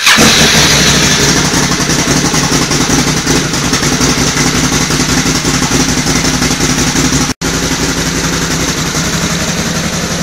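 Can-Am Renegade 1000's V-twin engine running steadily after being started, freshly refilled with oil so the oil filter cavity fills.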